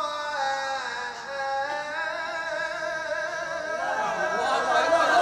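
A man's voice reciting the Quran in the melodic tajwid style (tilawat), amplified through a microphone. It steps down through a run of notes, then draws out long held notes with quick wavering turns near the end, growing louder.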